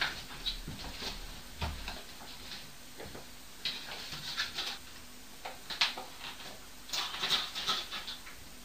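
Scattered light clicks, taps and scraping rustles at irregular intervals, with a dull low thump about a second and a half in.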